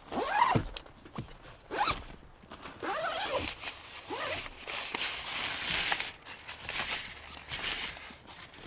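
Zip on a Ventura roof tent's fabric window panel being pulled open in three short strokes, then a longer stretch of zipping and fabric rustle as the flap comes down.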